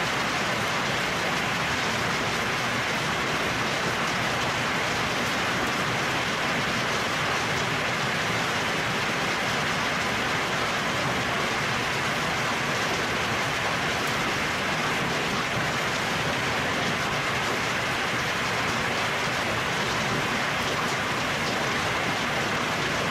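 Heavy hail mixed with rain pouring down steadily on trees and the ground: a dense, even hiss of countless small impacts that does not let up.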